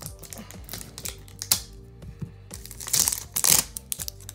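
Plastic shrink-wrap on a cardboard box crinkling and tearing under a hand in irregular short bursts, loudest about three seconds in, over background music.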